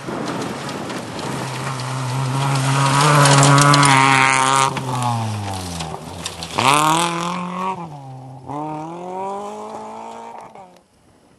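Rally car engine at full throttle on a gravel stage, its note climbing as the car closes in and dropping as it goes by. It then revs up again in two pulls as it accelerates away, with a spray of flung gravel. The sound cuts off suddenly near the end.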